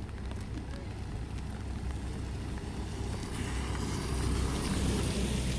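Street traffic with a steady low rumble; about three seconds in, a vehicle passes close, its tyres hissing on the wet road.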